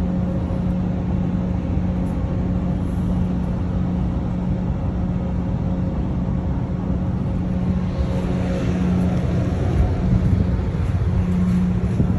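Heavy diesel truck engine idling steadily: a low rumble with a constant hum.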